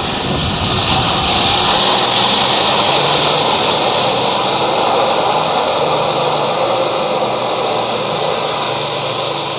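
Four-wheel-drive SUV engine pulling under load as it drives through a muddy pond, with water and mud churning and splashing around the tyres.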